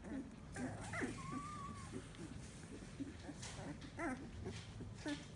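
Two-week-old Samoyed puppies whimpering and squeaking: many short, high cries that fall in pitch, with one longer, steadier whine a little over a second in.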